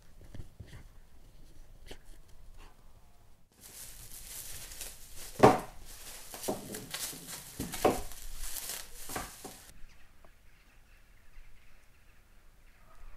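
Plastic cling film being pulled off its roll and torn, with crinkling rustles and several sharp rips, starting a few seconds in. Near the end comes the faint steady chatter of a large flock of birds.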